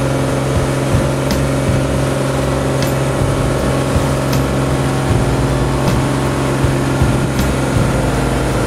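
Boat engine running steadily at cruising speed, heard from on board the boat.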